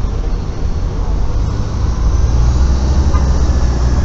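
City bus engine pulling away, a low rumble that grows louder about two seconds in.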